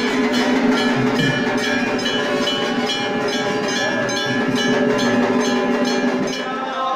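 Temple bells ringing over steady held tones, struck in a regular beat of about two strikes a second, cutting off suddenly near the end.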